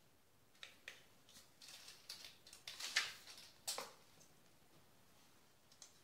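Tape measure being pulled out and laid across a paper pad: a few sharp clicks, then a scraping, rustling stretch that is loudest about three seconds in, and another click just before four seconds.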